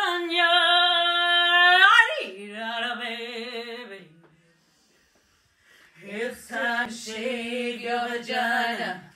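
Singing: a long held note that ends about two seconds in, then a short phrase with vibrato, a gap of silence of about a second and a half, and another sung line.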